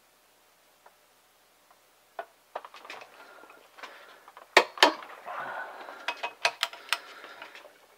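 Click-type torque wrench tightening the ring-gear bolts on a Ford 8.8 differential carrier set to 97 ft-lb, giving sharp metallic clicks as each bolt reaches torque. The two loudest clicks come close together about four and a half seconds in, followed by a brief metal rattle and a few more clicks as the wrench moves on to the next bolts.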